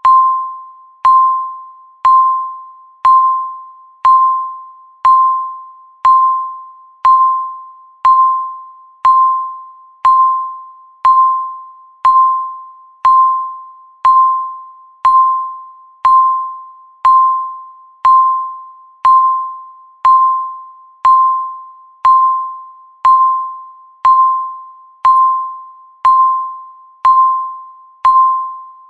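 Countdown timer beep sounding once every second, marking each second left: a single high tone that starts sharply and fades before the next one, like a struck chime.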